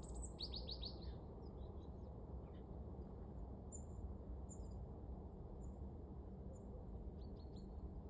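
Small songbirds chirping: a quick run of about five descending notes half a second in, scattered thin high peeps through the middle, and another short run of notes near the end, over a steady low background rumble.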